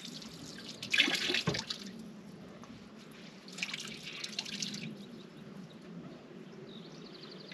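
Water running from a camp water jug's spigot and splashing over hands into a plastic bucket during hand washing. The splashing is loudest about a second in, with a second bout near four seconds.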